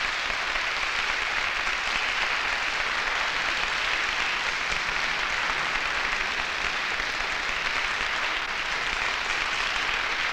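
A concert audience applauding: dense, steady clapping from many hands.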